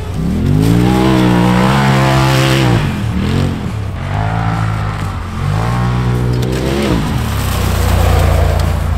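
Polaris RZR Pro XP side-by-side's 925 cc twin-cylinder engine revving hard again and again, the pitch climbing, holding and dropping with each throttle pull, settling lower near the end.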